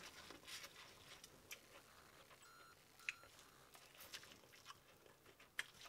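Near silence with faint chewing and small wet mouth clicks from eating corn on the cob.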